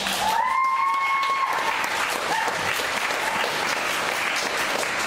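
Audience applauding, starting suddenly and holding steady. A high rising call rings out over the clapping near the start and holds for about a second and a half, with shorter calls after it.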